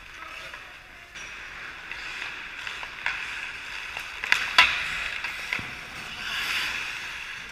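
Ice hockey skate blades scraping and carving on the ice, with two sharp clacks of stick and puck about four and a half seconds in, the loudest sounds, and a swell of skate scraping near the end.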